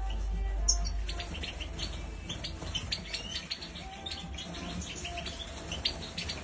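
Many small cage birds chirping with short, quick calls, several overlapping, in a breeding aviary.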